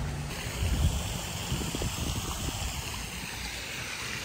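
Swimming pool water splashing and sloshing, a steady rushing hiss over an uneven low rumble.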